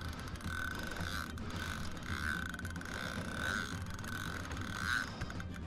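Fixed-spool fishing reel on a carp rod clicking in short bursts, about one a second, while a hooked carp is played close to the boat.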